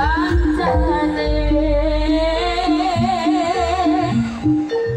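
Live Javanese jaranan music: drums and pitched metal percussion keep a steady beat under a long, wavering high melody line that breaks off about four seconds in.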